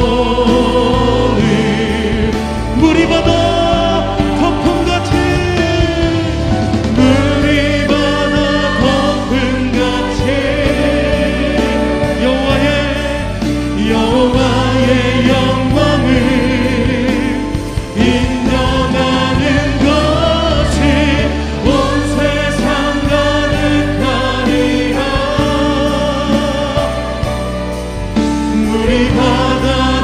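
Live worship music: amplified singers with a band of keyboards and drums, a Korean praise song sung continuously.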